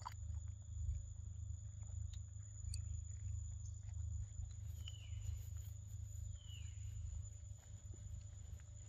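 Steady high-pitched insect drone over a low rumble, with scattered small clicks and two short falling chirps about five and six and a half seconds in.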